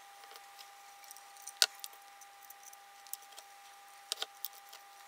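Small clicks and taps of hand-handling: wires being pushed through a 3D-printed plastic base while the LED strip assembly knocks lightly against it. One sharper click about one and a half seconds in and a couple more just after four seconds, over a faint steady tone.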